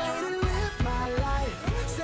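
Music with a melody over a steady beat.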